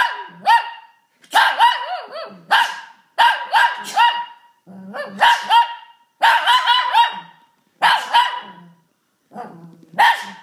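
Shih Tzu barking in a rapid, loud string of high-pitched barks, about fifteen in all, some of them bending in pitch like short yelps.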